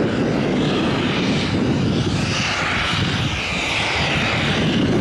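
Small turbojet engines of a Zapata Flyboard Air jet hoverboard in flight: a loud, steady jet noise with a high whine over it that drifts slightly lower in pitch about halfway through.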